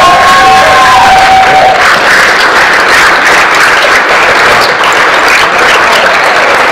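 A room full of guests applauding steadily, with a couple of long, held calls from the crowd rising over the clapping in the first two seconds.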